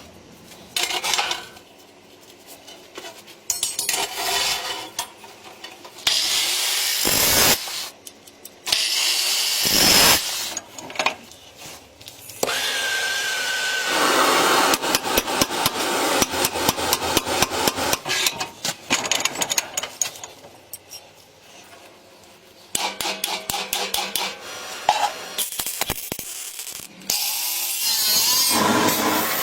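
Metalworking on sheet steel in a string of short, abruptly cut clips: rapid back-and-forth rasping strokes like hand sawing or filing, stretches of steadier power-tool noise, and scattered knocks and scrapes.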